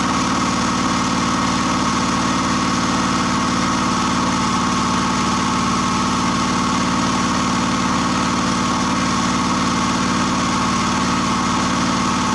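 Small engine running steadily on wood gas from an Imbert gasifier, with a steady whine above the engine note. Its fuel gas has been enriched by oil fed into the gasifier's air intake, and the air mixture has been opened up to keep it from stalling.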